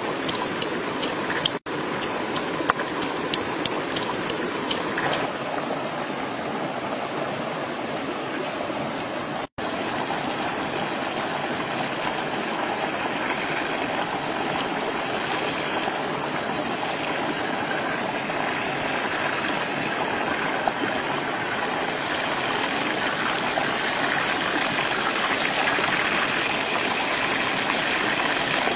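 Whole river fish frying in hot oil in a pan over a wood fire: a steady hissing sizzle, with scattered crackles in the first few seconds. The sound cuts out briefly twice, then runs on as a fuller sizzle that grows slightly louder toward the end.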